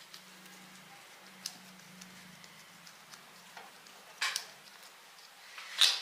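Scattered light clicks and taps from gloved hands setting stones into a damp clay substrate, the loudest near the end, over a faint steady low hum.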